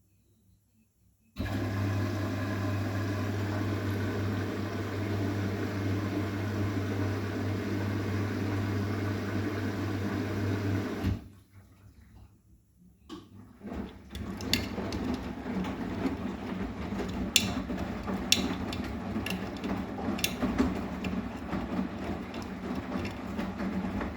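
Arçelik 9120M washing machine running a cotton 60 °C cycle: a steady low hum with rushing water for about ten seconds that cuts off suddenly, then, after a short pause, the drum turning with sloshing water and a few sharp clicks.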